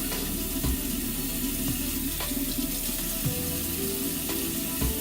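Kitchen tap running steadily into a sink while dishes are washed by hand, with a few short clinks of dishes scattered through.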